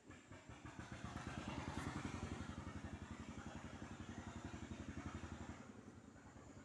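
A small engine starts and runs with a fast, even firing beat, settling a little lower about five and a half seconds in.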